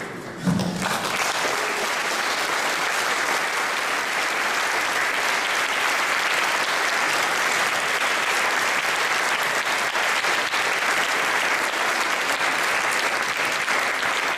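Large seated audience applauding, starting about a second in and continuing steadily.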